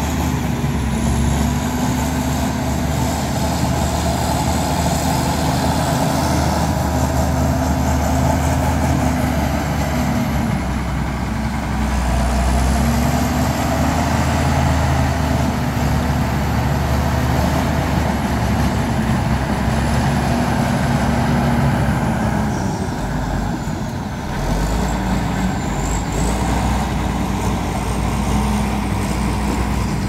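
Heavy earthmoving machinery's diesel engine running under working load, its note drifting up and down a little and easing briefly about three quarters of the way through.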